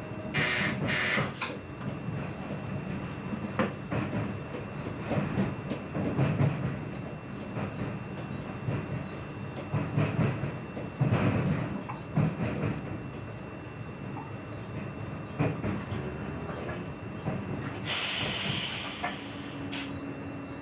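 NS passenger train running slowly, wheels knocking irregularly over rail joints and points over a steady rumble. Short air hisses come about half a second in and again near the end.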